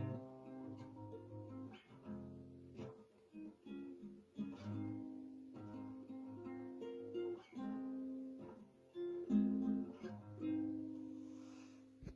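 Cordoba nylon-string classical guitar played solo, a slow run of plucked notes and chords that ring on, ending on a last chord that fades away.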